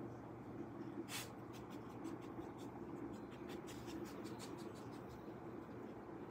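Small dog sniffing at close range: a run of quick, faint, irregular sniffs.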